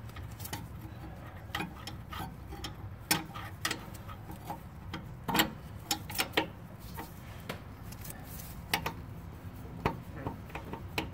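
Irregular small metallic clicks and taps from a gloved hand working the turbo oil drain tube and its fittings, over a low steady hum.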